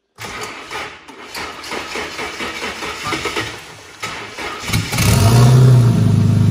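Turbocharged Ford AU Falcon engine cranking over on the starter for about four and a half seconds, then catching with a brief flare in revs and settling into a steady idle.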